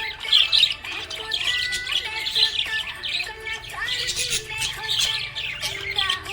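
Budgerigars chirping and chattering continuously: a dense run of quick, high chirps with some longer whistled notes mixed in.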